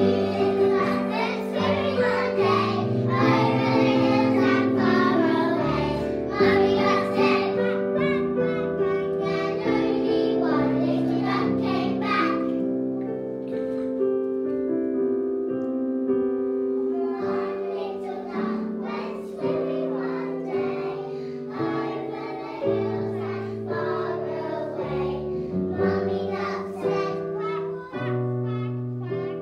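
A children's song with young children singing over a piano backing; the singing drops out for a few seconds about halfway through, leaving the piano alone, then picks up again.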